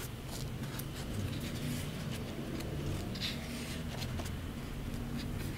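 Quiet room tone: a steady low hum with a few faint ticks and a soft hiss about three seconds in.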